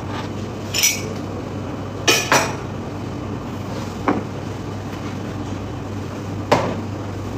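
Dishes and kitchenware clinking and knocking as they are handled and put away in a kitchen cupboard: a light clink about a second in, a double knock about two seconds in, a small knock near four seconds, and the sharpest knock near the end.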